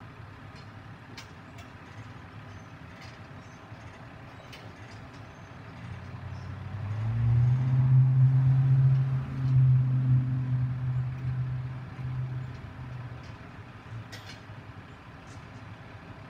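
A heavy truck's engine running: a low, steady drone that swells about six seconds in, is loudest for a few seconds, then fades away.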